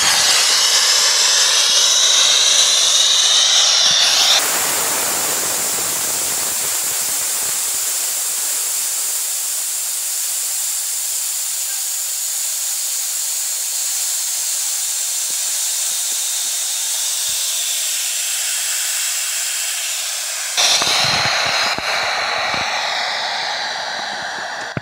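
Pressurised steam from a wood-fired welded steel boiler rushing out in a loud, continuous hiss as the boiler is vented through its opened release valve. The hiss changes abruptly about four seconds in and again near the end.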